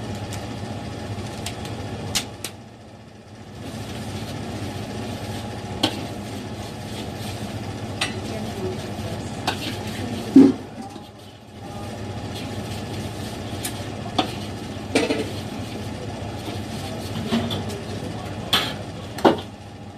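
Kitchen cooking sounds: scattered clinks and knocks of utensils against pots and a wok, the loudest about halfway, over a steady low hum.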